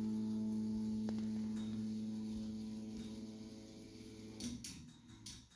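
A 1.5 kW water-cooled CNC spindle running with a steady hum that grows fainter, then stops about four and a half seconds in, followed by a few sharp clicks.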